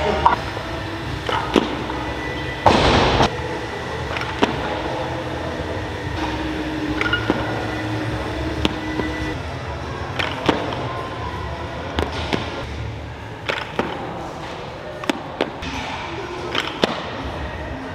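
Clanks and thuds of a loaded barbell with bumper plates during snatch reps, with a louder, longer crash about three seconds in.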